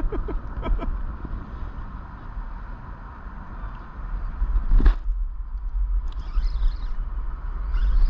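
Steady low outdoor rumble under a road bridge, with a few light knocks in the first second and one sharper knock near five seconds in.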